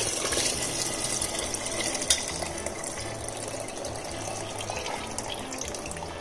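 Chicken stock poured from a steel pan through a wire-mesh strainer into a pot of vegetables, a steady splashing pour that slowly dies down. One short knock about two seconds in.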